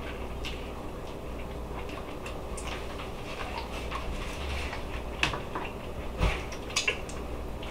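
Chewing and mouth sounds of someone eating a chicken wing: small wet clicks and smacks, with a few sharper clicks and knocks about five to seven seconds in, over a steady low hum.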